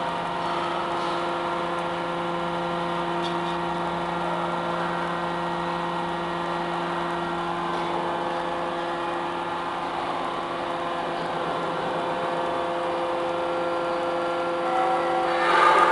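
Double-ram metal baler's hydraulic power unit running with a steady hum. The sound swells briefly and grows noisier near the end.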